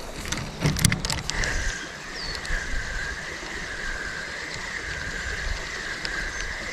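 A few clicks, then a fishing reel being wound in: a steady high whine that wavers slowly up and down with the turning of the handle.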